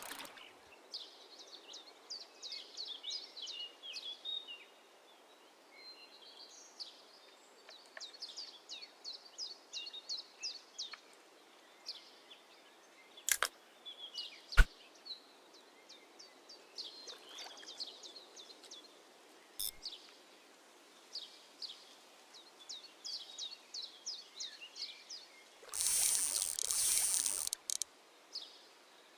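Birds singing in repeated runs of quick, high, falling chirps. A couple of sharp clicks come about halfway through, and a loud rush of noise lasts a second or two near the end.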